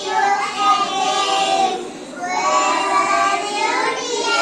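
Young child's voice singing a song, in two held phrases of about two seconds each with a brief break about halfway.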